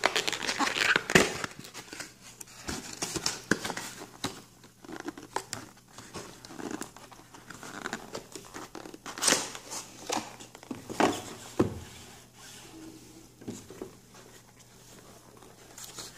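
Cardboard retail packaging being handled and opened by hand: a printed sleeve slid off a white inner box, with irregular crinkling, rustling and scraping and a few sharp clicks. The loudest handling comes about a second in and again around nine and eleven seconds in.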